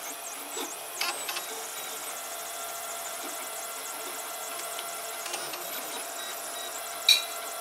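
FDM 3D printer running a print, its stepper motors whining in several steady tones as the print head moves. A few sharp clicks come about a second in, and a louder single click near the end.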